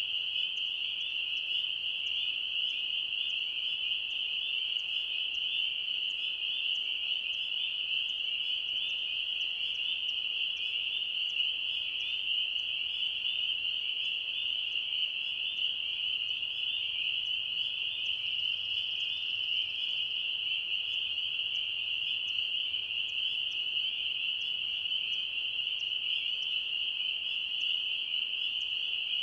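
Dense chorus of spring peepers, many high peeps overlapping into one steady, shrill wall of sound.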